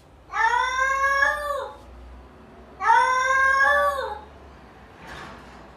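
Domestic cat giving two long, drawn-out meows, each about a second and a half and dropping in pitch at the end.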